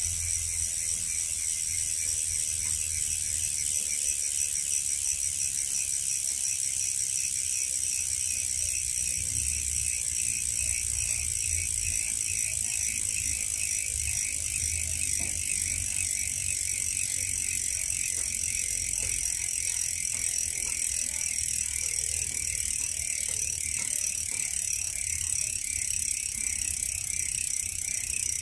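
Mavic Crossride rear hub freewheeling as the bicycle's rear wheel spins on its own: the freehub pawls click in a steady, rapid buzz.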